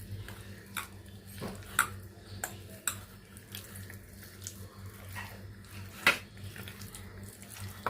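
Raw chicken pieces being mixed with a thick spice-and-flour marinade in a bowl: quiet wet squelching with irregular small clicks and taps against the bowl, two of them louder, about two seconds and six seconds in.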